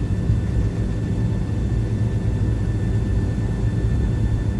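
Airliner cabin noise before takeoff: a steady low engine and airframe rumble with a faint, even whine above it.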